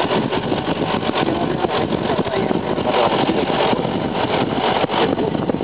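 A motor vehicle's engine running steadily at low speed, mixed with wind rushing over the microphone.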